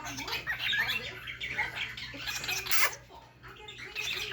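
Cockatiel chattering and chirping in quick short notes, with one sharper, louder call near three seconds in.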